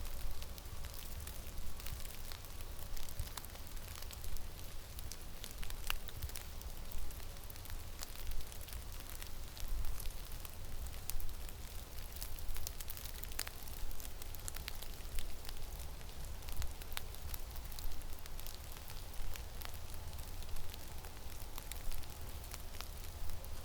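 Blizzard wind rumbling low and unevenly against the microphone, with many small sharp crackles and ticks scattered through it.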